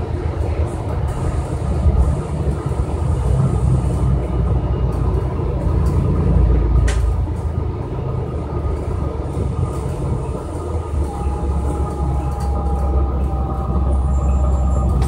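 Interior of a New Flyer city bus on the move: the steady, heavy rumble of the engine and tyres on the road. There is a single sharp click about seven seconds in, and a faint whine joins the rumble in the last few seconds.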